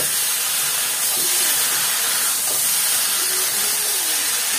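Masala sizzling in hot oil in a kadhai as fried cauliflower, boiled eggs and potatoes are stirred through it with a spatula: a steady hiss.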